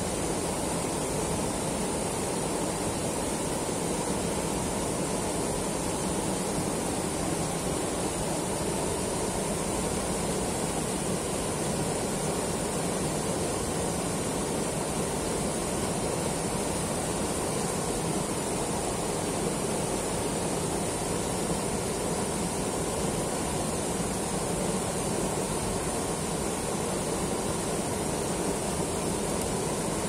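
A mountain river rushing steadily over a low rocky cascade and churning in the pool below.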